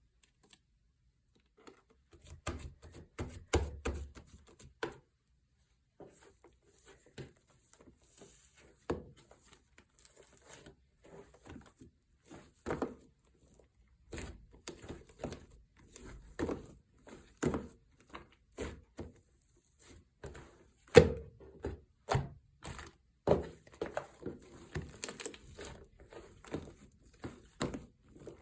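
Hands squishing, poking and stretching slime, giving irregular soft clicks, pops and squelches of trapped air, the loudest about two-thirds of the way through.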